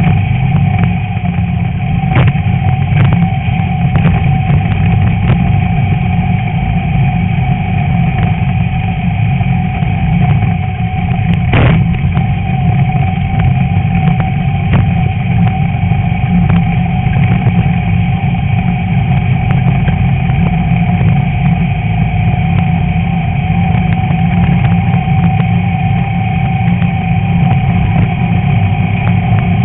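Class 11 VW Beetle's air-cooled flat-four engine running steadily at a nearly constant pitch, heard from the hood. Scattered knocks and rattles come through, the sharpest about twelve seconds in.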